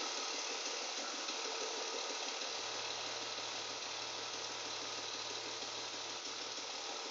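BMW E36 328i straight-six engine running steadily with a rapid knocking from the engine. A low steady hum joins about two and a half seconds in.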